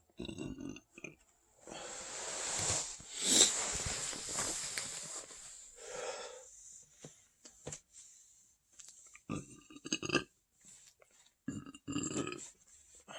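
A person burping from a very full stomach: several belches, including a long drawn-out one starting about two seconds in, and more short bursts near the end.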